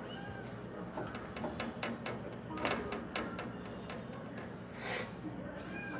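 Quiet room tone with a steady high-pitched hiss, scattered light clicks and taps, and a brief rustle about five seconds in.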